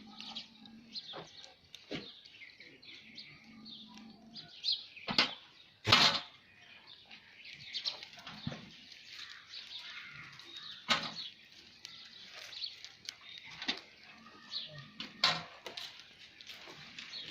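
Many small birds chirping continuously, broken by several sharp knocks, the loudest about six seconds in.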